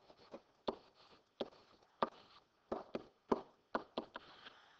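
Pen writing on a board: irregular soft taps and short scratches as the tip touches down and moves, about a dozen strokes.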